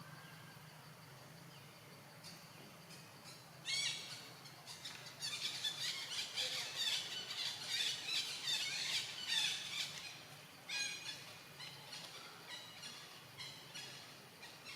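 Monkey squealing. A sharp high squeal comes about four seconds in, then a dense run of shrill squeals for several seconds, tapering into short repeated squeals.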